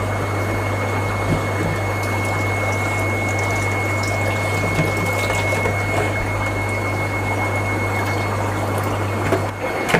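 Water pouring steadily from a plastic bucket into a glass aquarium, stopping just before the end, over a constant low hum.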